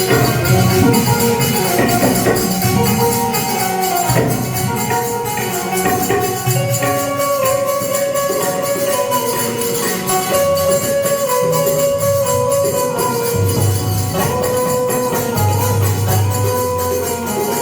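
Music with a fast, steady jingling beat and a held melody line over it.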